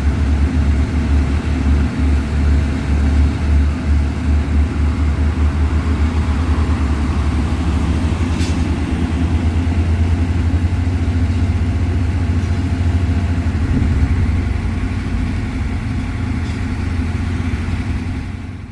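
Heavy diesel engine running steadily with a deep, even rumble, fading out at the very end.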